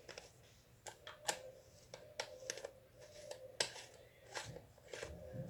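Light, irregular clicks and taps of small plastic pots, lids and craft items being handled on a table, over a faint steady hum.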